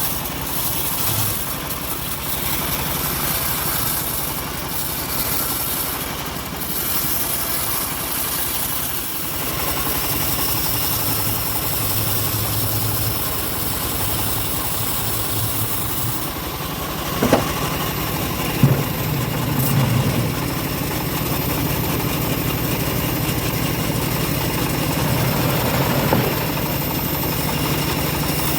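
Home-built bandsaw sawmill running steadily on its engine, with two sharp knocks a little past the middle.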